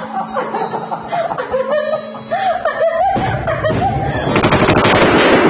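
Dramatic theme music; about three seconds in, a dense noisy swell builds and grows louder.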